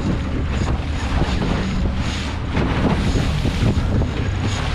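Boat motor running steadily as the boat moves off, with wind buffeting the microphone and water noise over it.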